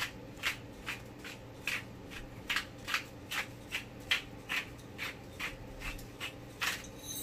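Hand-twisted pepper mill grinding black peppercorns, a steady rhythm of short gritty crunches about two and a half a second.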